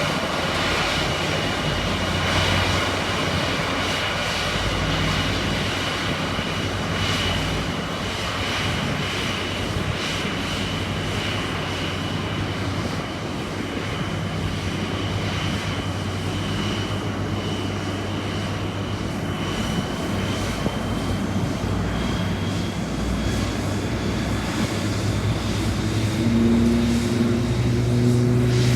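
Boeing 787-8 jet engines running with a steady high whine over a low hum, the whine slowly rising in pitch toward the end. A second, lower engine note comes in near the end and grows louder.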